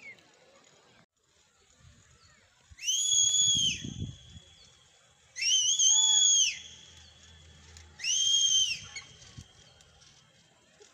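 Three loud, high-pitched whistles, each lasting about a second with a quick rise and fall in pitch at the ends; the middle one wavers slightly.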